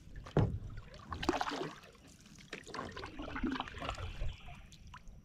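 Paddling a small boat: irregular splashes and drips of a paddle working the water, with a few short knocks, the sharpest about half a second in.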